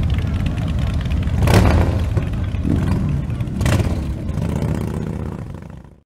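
Several motorcycle engines running as the bikes ride off across the square, with two louder swells, about one and a half seconds in and just under four seconds in. The sound fades out at the end.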